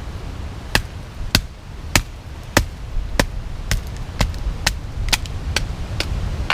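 Batoning: a wooden baton striking the spine of a Bark River Bushcrafter knife to drive its blade through a piece of ironwood. About a dozen sharp, evenly paced knocks, roughly two a second.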